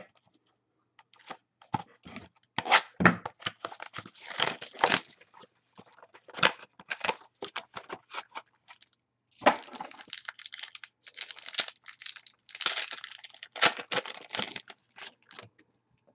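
A 2012 Prime Signatures football card box being torn open by hand, with bursts of tearing and crinkling cardboard and packaging and irregular clicks as the cards are slid out and handled. There is a short lull about halfway through.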